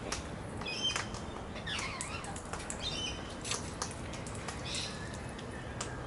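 Wild birds at a seed feeder: a few short, high chirps and squeaks, some sweeping in pitch, among scattered sharp clicks and rustles.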